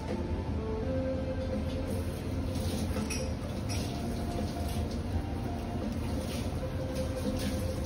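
Background music with held, slowly shifting notes over a steady low hum, with a few faint light taps and clicks scattered through it.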